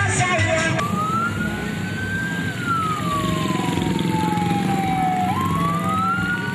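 Police car siren on a slow wail: one tone that rises, falls slowly over about three seconds, then rises again near the end, over steady crowd noise. Music with singing is heard for under a second at the start before a sudden cut.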